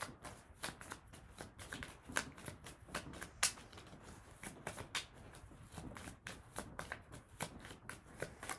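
A Lenormand card deck being shuffled by hand: an irregular run of soft card snaps and flicks, several a second, with one louder snap about three and a half seconds in.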